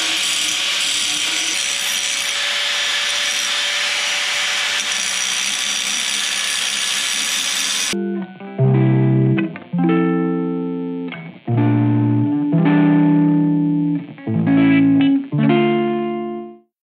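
Angle grinder with a cut-off disc running steadily as it cuts a small piece of steel for about eight seconds. Then it cuts off abruptly and plucked guitar music plays, a series of chords with short gaps between them.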